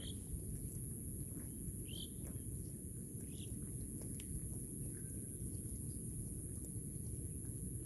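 Rural outdoor ambience: a few short bird chirps, near the start, about two seconds in and about three and a half seconds in, over a steady high hiss and a low rumble.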